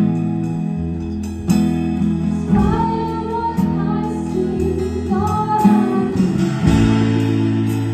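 Acoustic guitar with a capo strummed in steady chords in the key of E, with a woman singing two short phrases over it, about two and a half and five seconds in.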